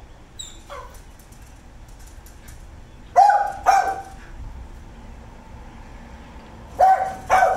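Canada goose honking: two pairs of loud, short honks, one pair a few seconds in and another near the end. A faint falling whistle-like call is heard just before.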